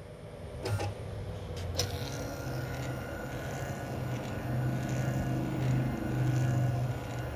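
CNC milling machine's X-axis drive motor moving the table back to zero under closed-loop control from the linear scales: a steady whine over a low hum that swells and eases. It starts about two seconds in, after a couple of short clicks.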